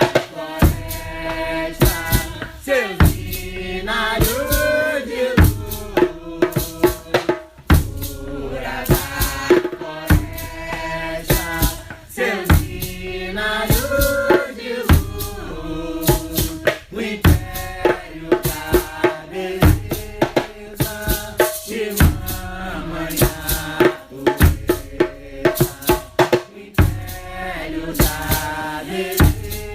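Nyahbinghi Rastafari chant: voices singing a melody over a steady beat of hand drums, with frequent sharp drum strokes.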